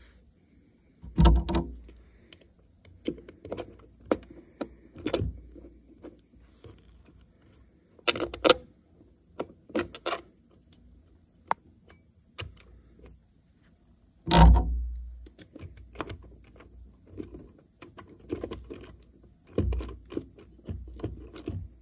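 Irregular clicks and knocks of a metal bulkhead connector being handled and fitted against a metal shelter wall, the loudest about a second in and about fourteen seconds in, over a steady high insect drone.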